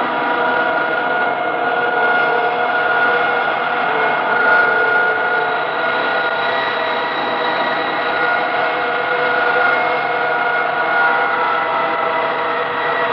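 Experimental noise music: a dense, steady drone of many held tones layered over a thick hiss-like wash, with no beat.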